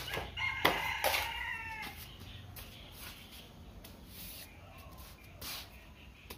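A rooster crowing once, starting about half a second in and lasting about a second and a half, its call falling in pitch at the end. A few sharp knocks sound around it and once more near the end.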